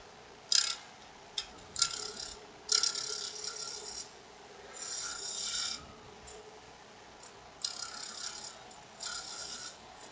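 A gouge cutting a dry aspen blank spinning on a wood lathe: about six short hissing cuts, each up to a second or so long, with pauses between. These are roughing cuts shaping the outside of the cup.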